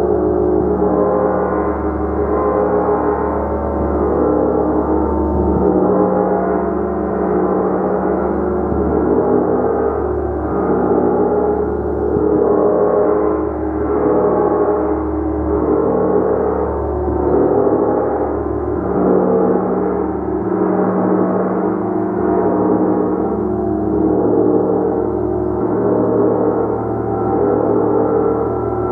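Large hammered gong played continuously, a dense sustained wash of overlapping ringing tones that swells and ebbs about every couple of seconds as it is struck again and again.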